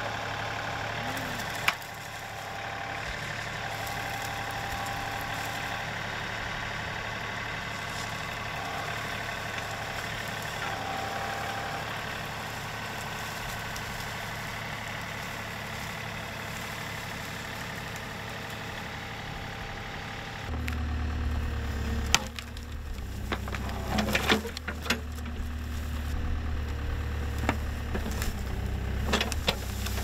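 John Deere 2038R compact tractor's three-cylinder diesel running steadily under load while its grapple shoves and carries brush. About twenty seconds in, a deeper, heavier diesel takes over, the Case 580 backhoe digging, with a run of sharp cracks and snaps of wood breaking.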